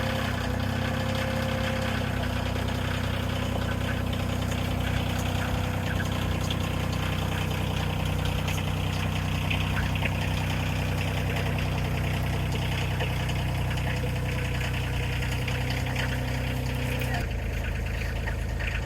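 Engine of a working machine running steadily at idle. Its note changes about two seconds in and shifts lower near the end.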